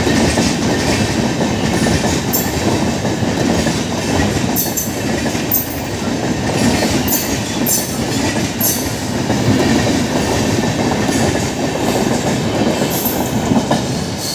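LHB passenger coaches of an express train rolling past close by at speed: a loud, steady rumble of wheels on rail, broken by irregular sharp high-pitched clicks and squeaks from the wheels.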